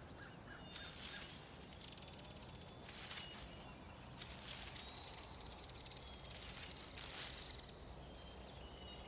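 Quiet forest ambience: faint, short bird chirps over a soft hiss that swells gently a few times, like a light breeze through leaves.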